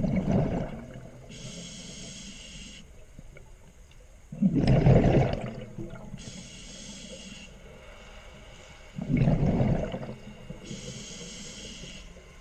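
Scuba diver breathing through a regulator underwater: three loud rushes of exhaled bubbles about four and a half seconds apart, each followed by a high hiss from the regulator as the diver breathes in.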